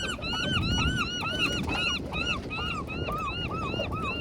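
A flock of birds calling over and over: rapid, overlapping short rising-and-falling calls, several a second, over a low rumble.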